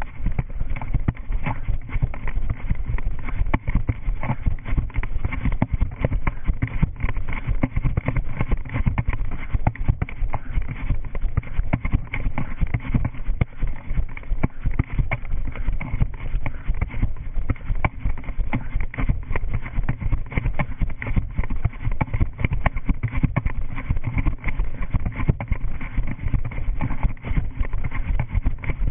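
Running footsteps at a quick, steady stride, heard through a head-worn GoPro action camera that jolts with each step, starting up as the runner sets off and continuing without a break.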